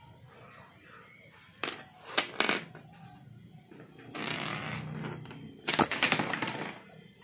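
Small metal rocker arms from a scooter cylinder head clinking and clattering on a concrete floor. A few sharp clinks come about two seconds in, then a longer scraping rattle, and the loudest clatter about six seconds in.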